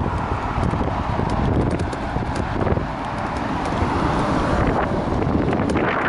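Wind rushing over the microphone with knocking and rattling from an electric scooter riding over a paved path; the rush grows louder near the end.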